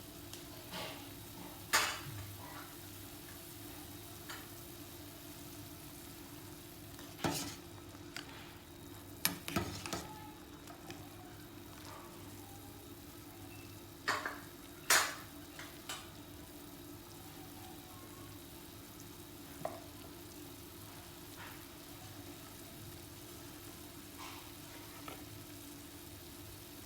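A utensil stirring food in a cooking pot, with scattered sharp knocks of the utensil against the pot, over a steady low hum.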